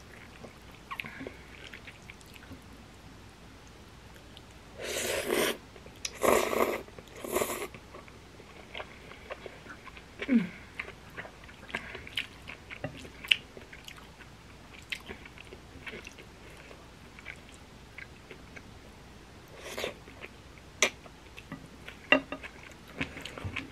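Close-miked eating of black bean noodles: chewing with small wet clicks and smacks, and three short loud bursts of noise about five to seven and a half seconds in.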